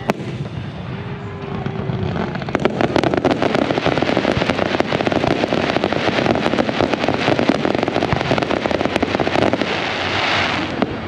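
Aerial fireworks: one sharp bang right at the start. Then, from about two and a half seconds in, a long dense run of rapid crackling pops lasts about eight seconds before fading out.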